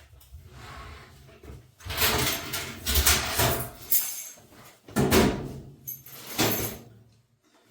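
Handling noise from the washer's sheet-metal cabinet and parts: scraping and knocking in two bursts, trailing off near the end.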